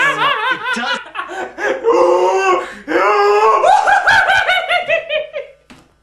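A man laughing hysterically in long strings of rapid, high-pitched 'ha's, broken by short gaps for breath. The last string drops in pitch and dies away shortly before the end.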